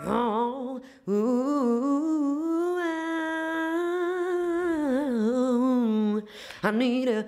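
A woman's voice singing a vocal run without words: after a short opening phrase, one long line from about a second in that wobbles rapidly through many small notes, climbs, holds high, then steps back down, with a short vocal sound near the end.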